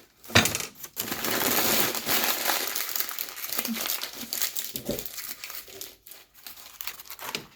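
Paper being handled and unwrapped, crinkling and rustling: a sharp rustle just after the start, then continuous crinkling that breaks up into shorter rustles near the end.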